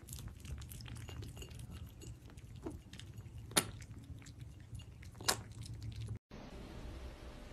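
Mother cat and kittens lapping milk from a shallow bowl: faint, quick wet ticks, with two louder clicks about three and a half and five seconds in, over a low steady hum.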